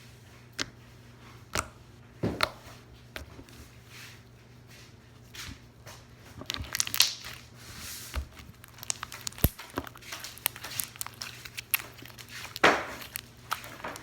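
Hands squishing and poking slime: scattered wet clicks and pops, sparse at first and coming faster and louder from about halfway through.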